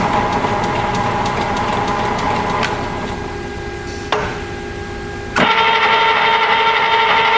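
Sebastian A-8 14" x 60" metal lathe running, a steady mechanical whine over machine noise. The sound changes abruptly twice, dropping a little about four seconds in and growing louder, with a stronger whine, about five and a half seconds in.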